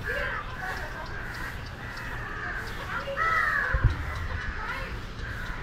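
Crows cawing, several harsh calls, the strongest a little after three seconds in, with a brief low thump just before four seconds.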